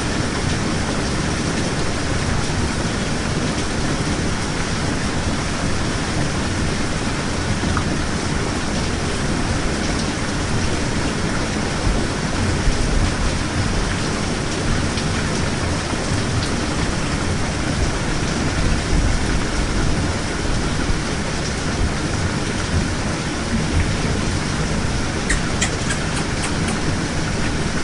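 Steady rain: a dense, even hiss with a low rumble underneath, and a few faint ticks near the end.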